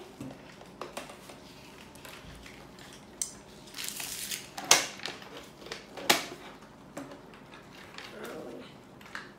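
Plastic toy pieces and an L.O.L. Surprise! Under Wraps doll capsule being handled on a tabletop: scattered light clicks and rustles, with two sharper plastic clacks about halfway through.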